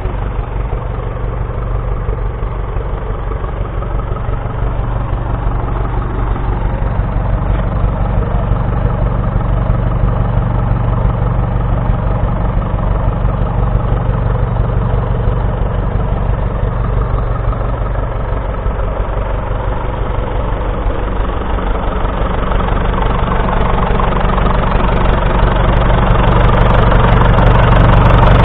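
Perkins P4 four-cylinder diesel engine of a 1942 Fordson Model N tractor running steadily at idle, growing louder near the end.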